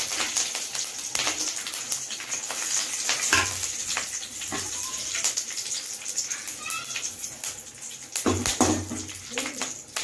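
Hot oil in an aluminium kadai crackling and sizzling as curry leaves, fenugreek seeds and dried red chillies are tempered in it, with many small sharp pops over a steady hiss.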